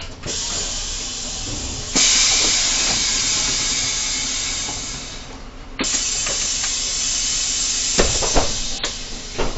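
Loud hiss inside a bus, stepping up sharply about two seconds in, breaking off briefly near six seconds, then going on with a few knocks near the end.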